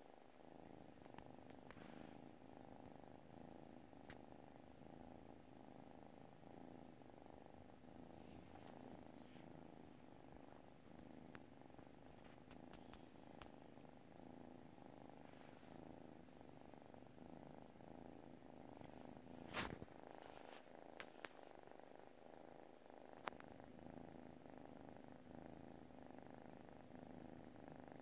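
Kitten purring softly and steadily in its sleep. A few faint clicks sound over it, and one sharper click comes about two-thirds of the way through.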